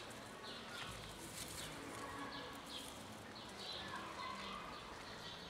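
Small birds chirping: a run of short, high, falling chirps repeated every few tenths of a second.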